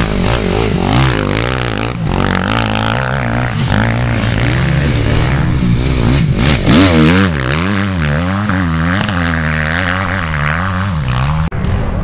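Motocross bike engines revving as two bikes ride past one after the other on a sandy track. The engine note rises and falls repeatedly with the throttle, strongest as the second bike goes by.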